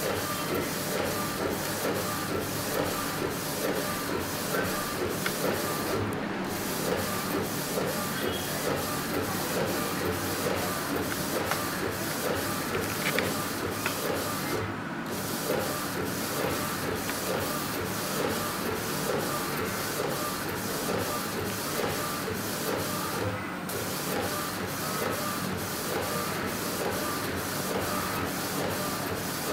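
Inkjet flatbed printer built on an Epson printer, its print-head carriage shuttling back and forth in a steady rhythm of several passes a second while printing onto a T-shirt. The run has brief breaks about every eight to nine seconds.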